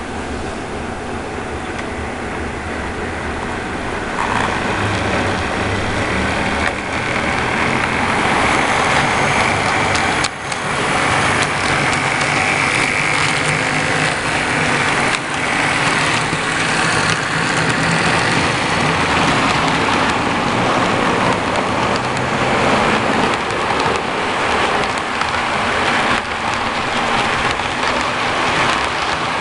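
HO scale model freight train running past close by: a steady rattling hum of small metal wheels on the track and the locomotives' motors, getting louder about four seconds in as the locomotives reach the microphone, with an occasional sharp click.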